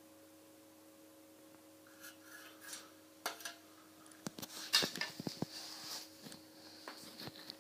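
Scattered clicks, knocks and rustling of small objects being handled, busiest about five seconds in, over a faint steady hum.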